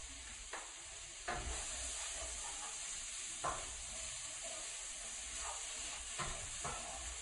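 Shrimp, squash and kale stir-fry sizzling steadily in a skillet as it is stirred, with a handful of short knocks and scrapes of the stirring utensil against the pan.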